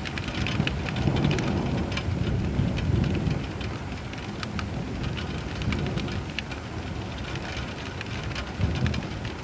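Steady rain falling, with many individual drops tapping on a surface, over low rolling thunder that swells about a second in and rumbles on more softly.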